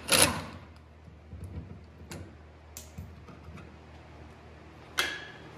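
Hand tools working the shock absorber nuts under a Ford Ranger's rear axle. A brief loud clatter comes right at the start, then scattered light metallic clicks, and a sharper metal clink with a short ring about five seconds in.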